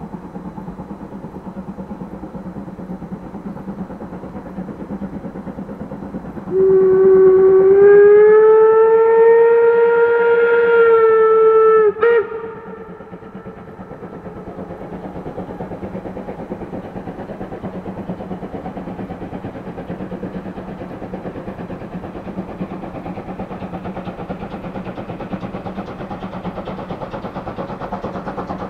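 Steam locomotive running, with a steady rush of exhaust beats, and its steam whistle sounding one long blast of about five seconds starting a few seconds in, rising slightly in pitch and cutting off abruptly.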